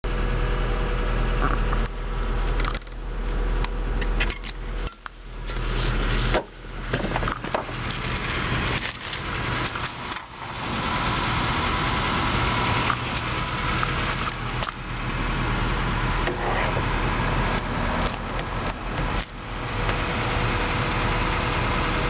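Continuous crackling, rustling noise with scattered small clicks and a few brief dips in level, of the kind made by handling and rubbing.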